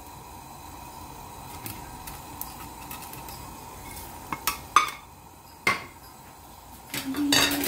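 Broth simmering steadily in a pan, with a few sharp clinks of a spatula and a dish against the pan about halfway through and more clattering near the end.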